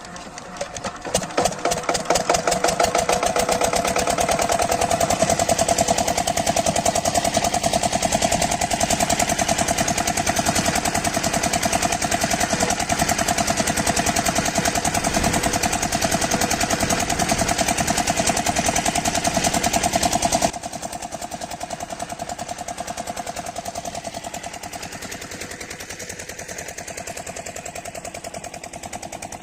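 A small engine running steadily with a rapid, even pulsing. About two-thirds of the way through it suddenly becomes quieter and runs on at the lower level.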